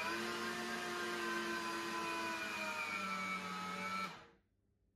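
Electric meat grinder's motor running as it extrudes cookie dough: a steady whine whose pitch drops a little about three seconds in, then switched off after about four seconds.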